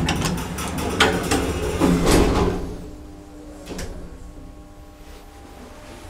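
The sliding car doors of a 1980 Schmidt-Medebach elevator clatter shut, loudest about two seconds in. After a click a little later, a faint steady hum with a few tones sets in as the car starts to move.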